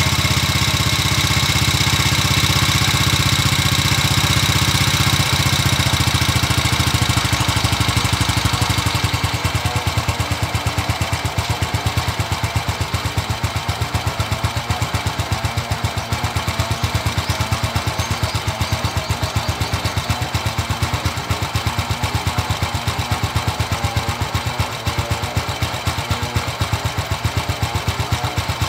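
Honda XRM110's single-cylinder four-stroke engine running steadily at idle with a fast even pulse, on its newly fitted four-pin Skygo CDI and new spark plug.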